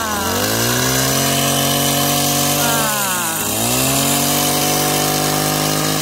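Petrol-engine hedge trimmer running at high revs while cutting a shrub. Twice, near the start and about three seconds in, the engine speed drops sharply and climbs back up as the throttle is eased and opened again.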